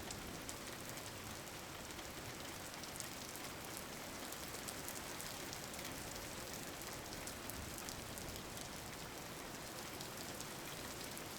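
Steady rain falling on a surface, an even hiss with fine, close patter of drops.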